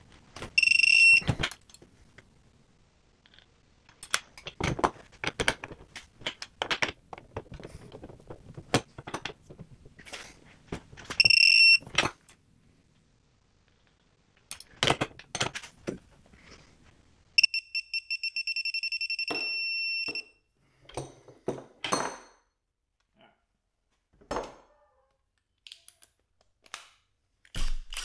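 High electronic beeps from a digital torque adapter on a breaker bar as bolts are torqued: a short beep about a second in, another near 11 seconds, and a fast run of beeps lasting about three seconds past the midpoint, the adapter's alert that the set torque has been reached. Between the beeps come clicks and clanks of the wrench and metal parts being handled.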